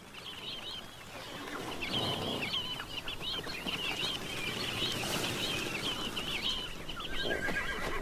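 A flock of sandgrouse calling in flight: a dense chatter of short, wavering calls. A horse whinnies near the end.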